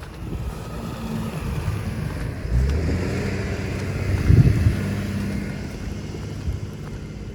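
A motor vehicle passes: engine hum and tyre noise build, are loudest about four seconds in, then fade away.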